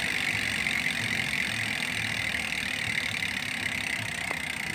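Rear freehub of a TRINX M136 mountain bike freewheeling as the wheel spins: its ratchet clicks so fast they blend into a steady high buzz, easing off slightly toward the end.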